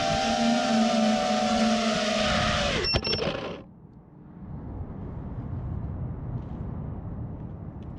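5-inch FPV quadcopter's motors and props whining steadily. About three seconds in there is a sharp knock, and the whine drops and cuts off. A quieter low rumble with faint scattered clicks follows.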